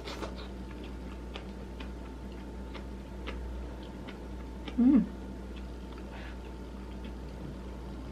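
Quiet eating sounds, faint irregular mouth clicks and smacks as spoonfuls of kimchi stew are sipped and chewed, with a brief hummed "mm" about five seconds in.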